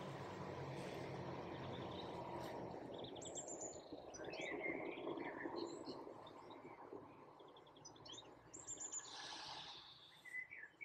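Small birds singing faintly, short chirps and trills repeated on and off, over a steady background rush of outdoor air that dies away near the end.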